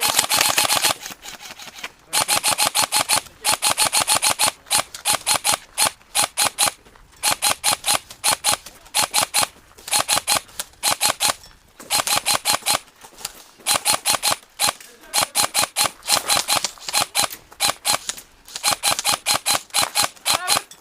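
Airsoft guns firing rapid full-auto bursts of sharp clicking shots, one burst after another with short pauses between.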